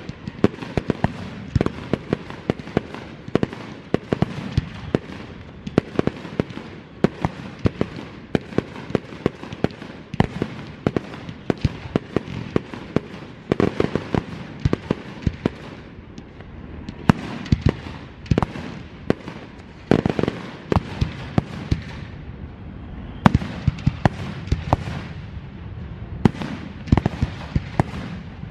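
Aerial fireworks bursting in quick succession: a string of sharp bangs, several a second, with a steady crackle and hiss between them.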